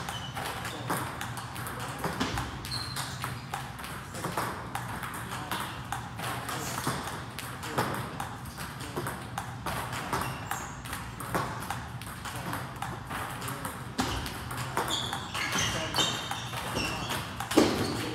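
Table tennis ball being hit with forehand topspin strokes: sharp ball-on-paddle and ball-on-table clicks, roughly one stroke a second.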